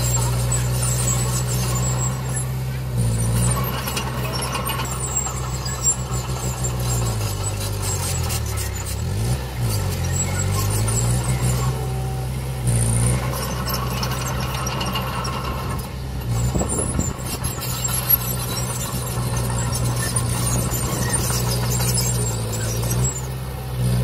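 Diesel engine of a small crawler bulldozer running steadily under load, its pitch sagging and recovering twice in the middle, with a high-pitched squeal over it.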